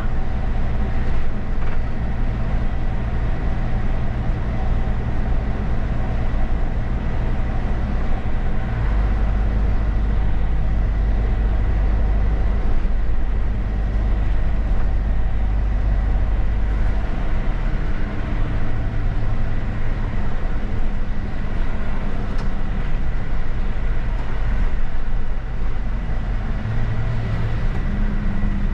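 Mercedes-Benz bus driving along an open road, heard from the driver's seat: a steady low engine drone with tyre and road noise. The engine note shifts about a third of the way through and again past the middle. A faint steady high whine runs underneath.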